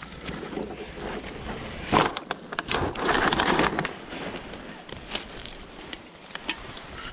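Dry brush and grass crunching and rustling, along with a plastic trash bag crinkling, while litter is picked up with a grabber tool. Scattered sharp clicks and snaps run through it, and the loudest rustle comes about three seconds in.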